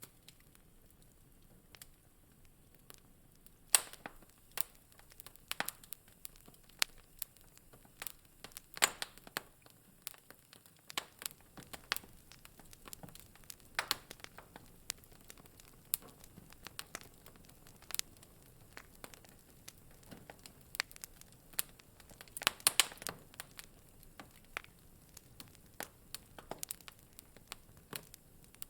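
Wood fire crackling in a fireplace: irregular sharp snaps and pops of burning logs over a faint hiss, with a brief flurry of pops a little past the middle.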